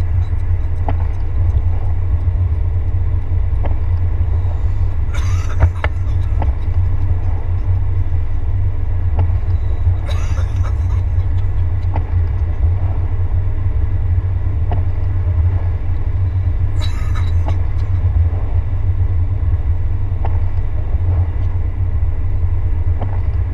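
Steady low rumble of a car driving on a wet road, heard from inside the cabin, with three brief hissing swishes about five, ten and seventeen seconds in.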